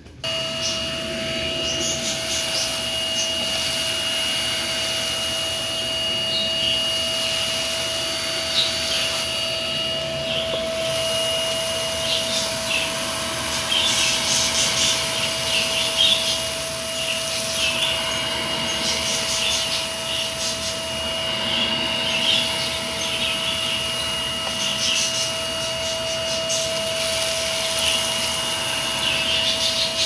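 Shark vacuum cleaner running with a steady whine, its cut-off plastic bottle nozzle sucking empty bird-seed husks out of a pile of seed, with scattered crackling as the husks rattle in. The wide opening pulls in only the light empty husks and leaves the heavier good seed behind.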